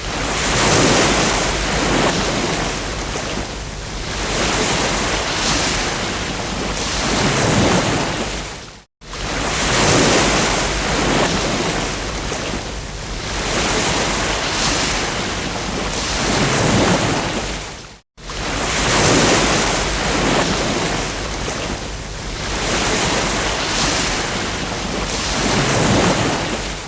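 Ocean surf: waves breaking and washing up the shore, swelling and easing every few seconds. The recording cuts out abruptly for a moment twice, about nine seconds apart, as the short loop restarts.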